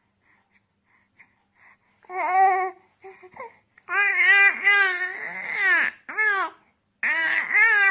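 A baby babbling and cooing in a string of short, high-pitched sounds whose pitch rises and falls, starting about two seconds in after a near-quiet start.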